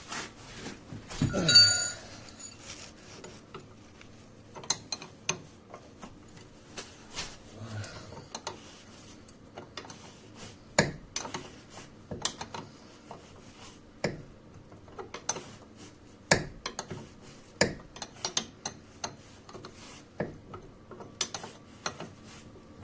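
Metal hand tools clinking and knocking at irregular intervals as wrenches are worked on the subframe bolts, with one louder ringing metallic clank about a second and a half in.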